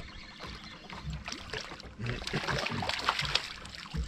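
A hooked bass splashing and thrashing at the water's surface beside the boat as it is brought in, loudest in the second half.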